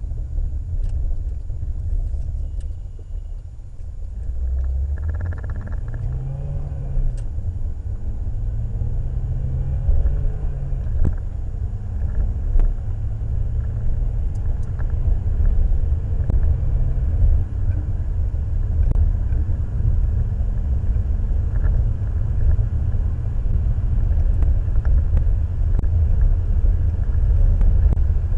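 Citroën Xantia on the move, heard from inside the cabin: a steady low engine and road rumble. The engine note climbs and drops a few times in the first third as the car is driven hard through the gears.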